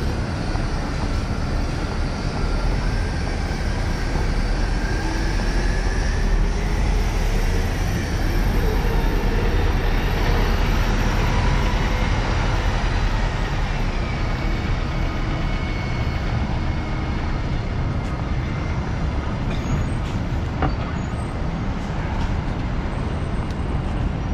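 Loud, steady rumble of heavy city traffic, with a few whines gliding up and down over it.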